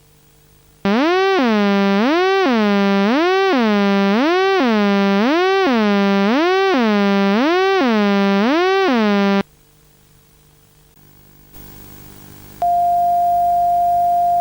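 Synthesized emergency-alert siren: a loud, buzzy tone wailing up and down about once a second for roughly eight seconds, then stopping abruptly. After a short pause a hiss of static rises, and a steady single-pitch alert tone starts near the end.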